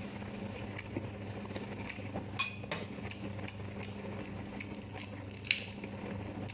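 Close-miked eating sounds: small clicks and smacks of chewing, with a spoon or cutlery clinking against a dish about two and a half seconds in and another sharp click near the end, over a steady low hum.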